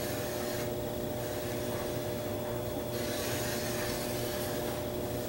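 Pencil scratching on kraft paper as a straight line is drawn along the edge of a square, over a steady background hum.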